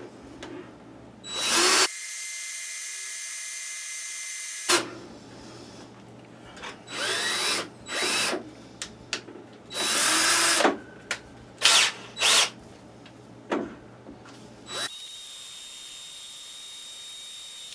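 Power drill boring a tap hole in repeated short bursts, with pauses between. The bit is dull, which the driller thinks has just about had it.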